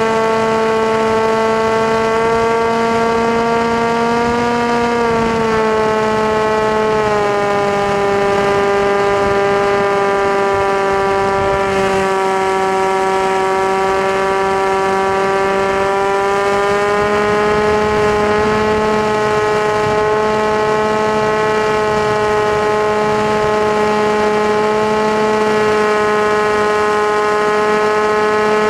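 FPV model aircraft's electric motor and propeller giving a steady, loud whine; the pitch steps down slightly about five to seven seconds in and rises a little again around seventeen seconds.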